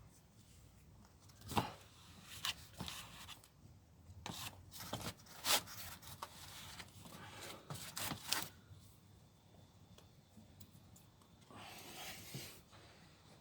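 Plastic spreader scraping two-part body filler across a sheet-metal dent: short, irregular scraping strokes through the first two-thirds, then one longer scrape near the end.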